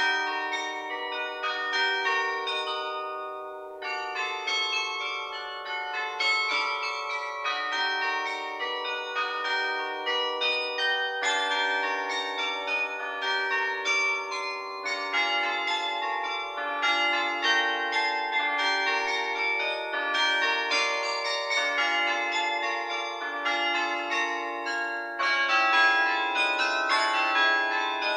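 Carillon bells played from the baton keyboard: many quick notes and chords struck in succession, each ringing on under the next. The texture thins briefly about three seconds in and grows fuller and louder near the end.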